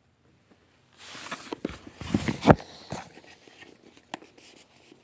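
Packaging of a VEXnet joystick being handled: rustling with a string of clicks and knocks, loudest about two and a half seconds in, dying down to a few light taps.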